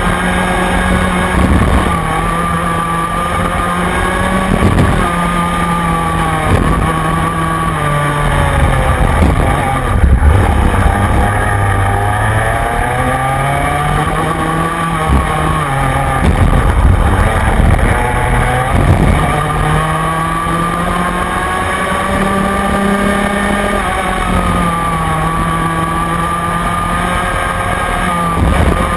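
Rotax Mini Max 125cc two-stroke kart engine heard onboard at race pace. Its pitch drops off the throttle into corners and climbs again on acceleration, several times over, with the deepest drop about halfway through.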